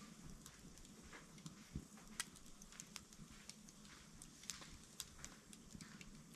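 Wood fire crackling faintly, with irregular pops and snaps, the sharpest about two seconds in.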